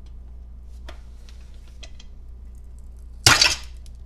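Front cover of a Datsun 240z stock four-speed transmission being pried off with a screwdriver: a few light metallic clicks, then one sudden loud metal clatter a little after three seconds in as the stuck, gasketed cover breaks loose.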